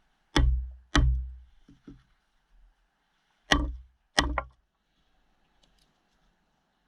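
Four heavy chopping strikes into wood, in two pairs about three seconds apart, the blows of each pair about half a second apart, with two lighter knocks after the first pair.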